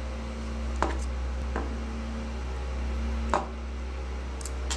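Sharp metallic clicks as a hard drive's small neodymium magnet snaps against and is worked on a steel screwdriver shaft: two loud ones about 2.5 seconds apart, with fainter clicks between and near the end, over a steady low hum.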